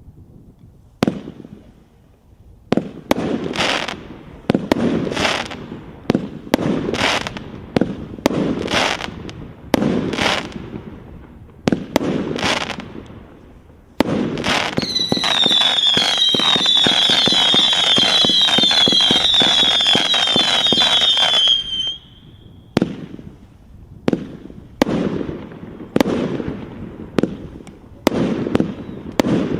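A 120-shot consumer fireworks cake (20–36 mm tubes) firing. Single launches come about once a second, each a sharp report with a fading tail. About halfway through, a dense rapid volley with wavering high whistles runs for roughly eight seconds, then single shots resume.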